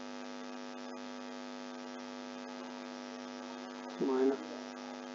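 Steady electrical hum with a stack of even overtones, picked up on the recording. A brief snatch of a man's voice comes about four seconds in.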